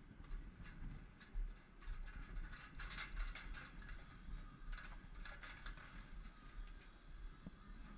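Climbing a steel tower-crane ladder: hands and boots on the metal rungs give irregular clicks and clanks in clusters, busiest about three and five seconds in, over a steady low rumble.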